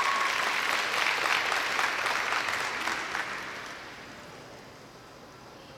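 Audience applauding, dying away over about four seconds to quiet hall noise.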